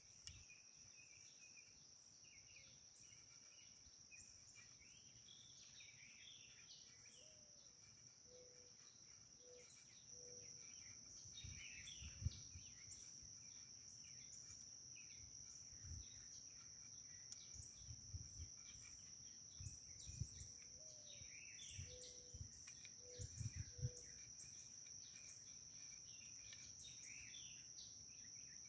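Steady chorus of crickets and other insects, with scattered bird chirps. A few soft low knocks come through about midway and again a little later, the loudest things in the stretch.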